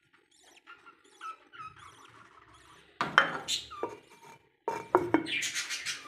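Faint squeaky peeping of newly hatched budgerigar chicks, repeating about once or twice a second. About three seconds in, loud rustling and a few knocks start as the nest box's cloth cover is handled.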